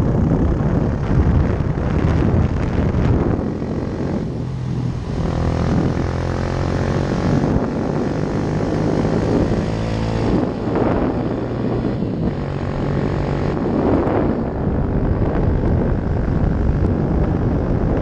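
Yamaha YS 125's single-cylinder four-stroke engine running through a LeoVince aftermarket exhaust, pulling on a climb, its pitch dropping and rising again a couple of times, with wind noise on the helmet-mounted microphone.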